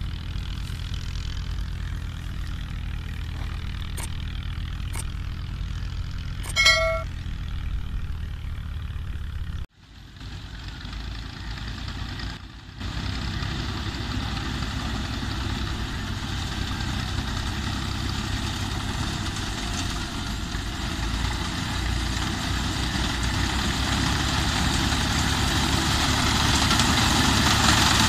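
A tractor engine runs steadily, with one short ringing ding about seven seconds in. After a break, a tractor-mounted reaper cuts standing wheat, its engine and cutter getting steadily louder as it comes closer.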